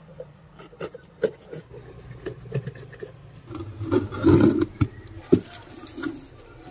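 Irregular clicks, taps and scrapes of hard objects being handled, with a louder cluster of scraping and knocking about four seconds in.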